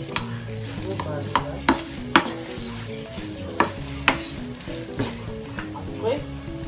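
Small fish (ndakala) frying in hot oil in a pan, sizzling, while a spatula stirs them. The spatula knocks and scrapes against the pan with about eight sharp clicks, the loudest about two and four seconds in.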